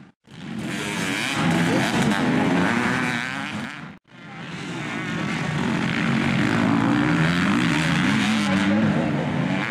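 Motocross dirt bike engines revving up and down as they ride past on a dirt track, the pitch rising and falling with the throttle. The sound cuts off and starts again about four seconds in.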